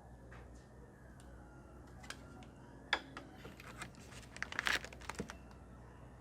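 Packaging of a boxed instant water heater being handled: scattered sharp clicks and short crinkling rustles, with a denser burst of rustling about three-quarters of the way through.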